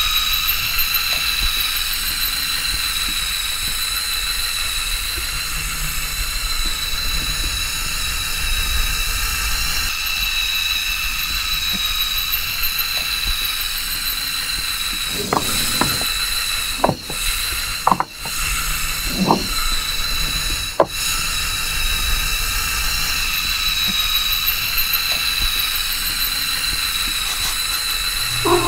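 Small electric motor and gear drive of a LEGO Technic tracked vehicle running with a steady high whine. About halfway through come a few knocks and clacks as the plastic tracks climb over wooden blocks.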